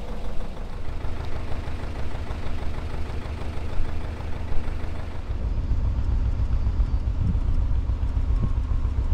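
A narrowboat's diesel engine running steadily as the boat cruises, a low rumble that gets heavier about halfway through.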